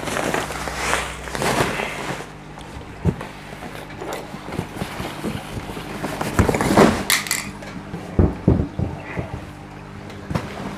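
Plastic sacks of aquarium substrate and a cardboard box being handled: rustling, then a cluster of knocks and rustles about two-thirds of the way in as the box is lifted and moved, and a few single knocks after. A steady low hum runs underneath.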